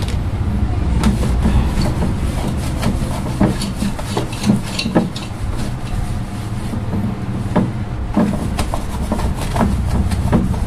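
A cloth rag rubbing and wiping over an air cooler's blower housing, with scattered small knocks and taps, over a steady low rumble.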